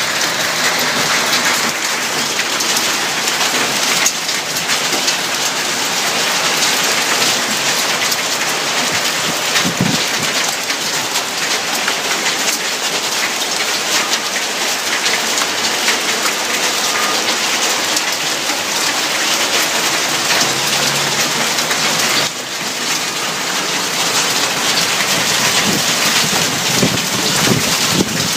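Hail and rain pelting down hard, a dense, steady hiss thick with the ticks of countless small stones striking surfaces.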